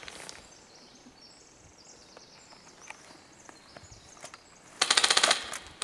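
Airsoft rifle firing a rapid full-auto burst of about a second near the end. Before it are a few quiet seconds with faint scattered clicks.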